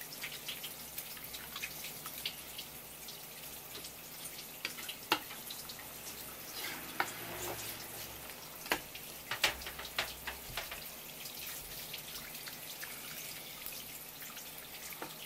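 Wet, slippery clicks and squelches of hands pressing and stroking a slimy whole pike conger along a wooden cutting board, with a run of louder sharp clicks around the middle.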